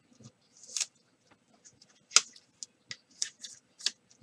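Trading cards being handled: a quiet run of light clicks and brief scrapes of card stock, a few a second, the sharpest about two seconds in.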